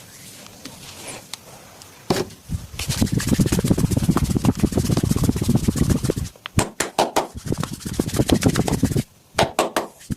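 Hands rubbing fast and hard in a massage, a dense scratchy friction that starts about two seconds in and runs to near the end, with several sharp clicks in the second half.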